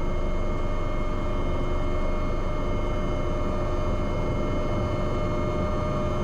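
Cockpit noise of an AW189 twin-turbine helicopter coming in to land: a steady rotor and engine rumble with several constant high whining tones, unchanging throughout.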